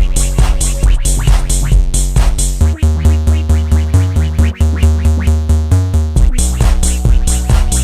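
Background music with a steady fast beat and a bass line that shifts lower for a few seconds in the middle.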